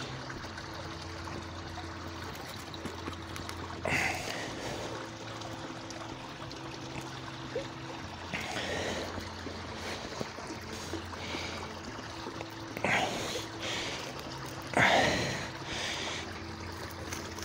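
Quiet handling and knife work as the paws are cut off a skinned grey squirrel, over a steady low background, with about four short, heavy breaths close to the microphone.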